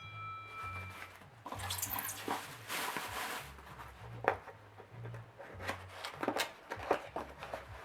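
Packaging rustling and crinkling as a stone carving is unwrapped by hand, with scattered sharp clicks and crackles. A short ringing clink comes right at the start.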